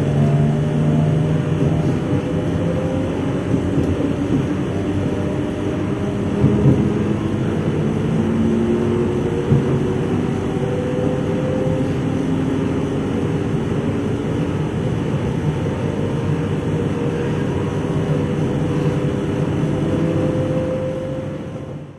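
SNCF Z 20500 (Z2N) double-deck electric multiple unit standing at the platform with its on-board auxiliary equipment running: a steady hum with several slowly drifting tones. The sound drops away sharply at the very end.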